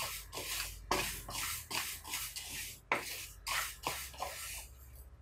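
Split mung lentils being dry-roasted in a black pan and stirred with a wooden spatula, the grains swishing and rattling across the pan. There are about a dozen quick strokes, two or three a second, which stop shortly before the end.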